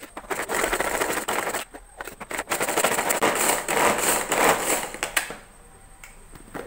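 Hand-pulled string vegetable chopper being worked, a rapid clicking whirr as the cord is pulled and the blades spin through green chillies, garlic and ginger. It comes in two spells, the second longer, and stops about five seconds in.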